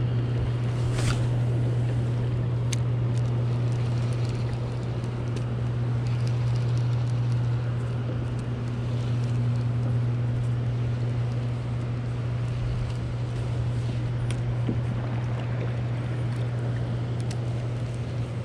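Steady low hum under gusting wind and churning water, with a few faint clicks about a second in, near three seconds and near fifteen seconds.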